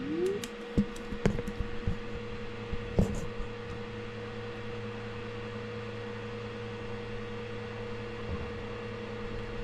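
Elegoo Saturn 4 Ultra resin printer's Z-axis motor raising the build plate out of the resin vat after a pause, a steady mechanical hum that rises in pitch briefly as it starts. A few light clicks come in the first three seconds.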